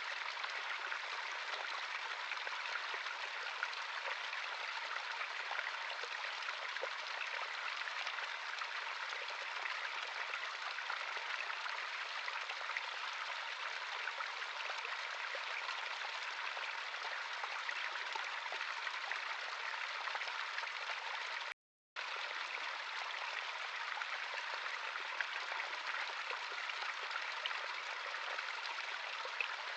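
Natural stream of running water, a steady rushing and burbling. The sound drops out completely for a split second about two-thirds of the way through.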